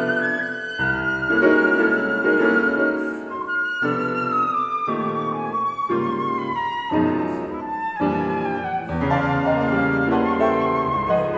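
Concert flute and grand piano playing classical music. The flute holds a melody in long notes that steps slowly downward, then climbs again near the end, over piano chords that change about once a second.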